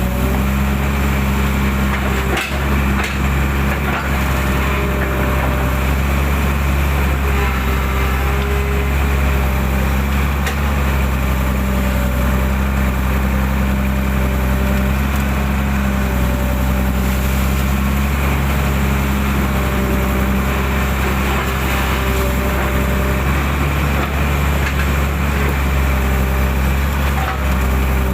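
SK120 excavator with a Mitsubishi diesel engine running steadily while digging out a ditch, a hydraulic whine coming and going over the engine drone. A couple of sharp knocks a few seconds in.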